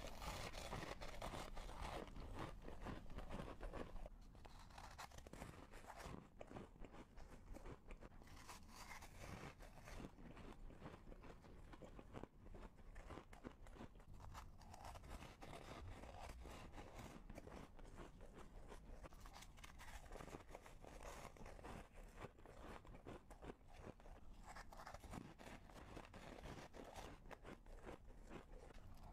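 Close-up crunching and chewing of frozen coloured ice pieces, a dense run of crackling crunches. It is louder for the first few seconds and quieter after that.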